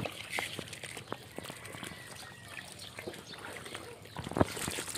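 Water splashing and trickling among a crowded mass of frogs, with scattered small splashes and a louder splash about four and a half seconds in.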